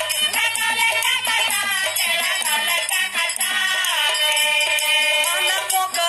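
Bhojpuri song playing: a melody line over a steady beat, with no sung words in this stretch.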